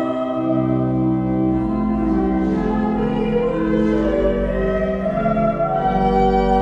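Church music: singing over sustained accompanying chords, the notes held and changing about once a second.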